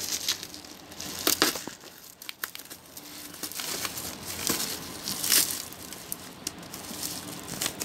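Plastic bubble-wrap packaging crinkling and rustling in irregular bursts as it is handled and cut open with scissors, with louder crackles about a second and a half in and again past five seconds.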